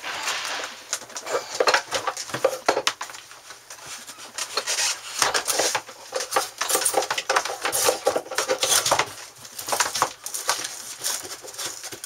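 Irregular scraping, rubbing and knocking of hand work on the air conditioner unit as it is worked loose and handled during removal.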